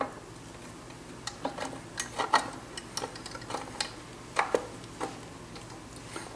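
Light, irregular metallic clicks and taps as a length of wire is worked loose and pulled out from around the gear train of a Triumph Spitfire 1500 single-rail gearbox, the wire and gears knocking against the cast-iron case. The sharpest clicks come about two and a half and four and a half seconds in.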